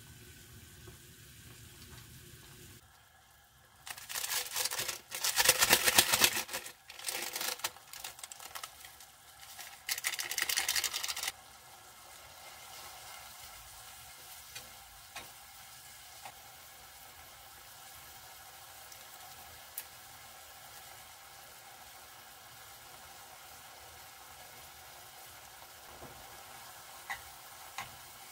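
Stir-fried instant ramen being tossed and stirred with metal chopsticks in a pot on a gas hob: a low steady sizzle with light taps of the chopsticks against the pot. Earlier, from about four to eleven seconds in, a loud noise comes in several bursts.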